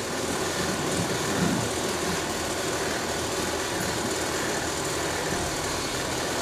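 Steady, even background noise: a constant machine-like hum and hiss with no voices and no distinct events.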